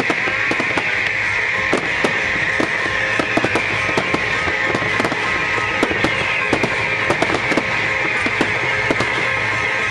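Aerial fireworks crackling and popping in rapid, irregular cracks, several a second, over the display's music soundtrack.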